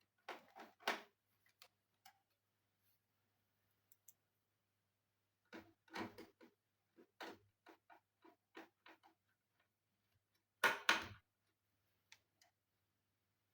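Scattered small clicks, taps and knocks as parts of an all-in-one desktop computer are handled during disassembly. They come in three short clusters, and the loudest is a pair of knocks near the end.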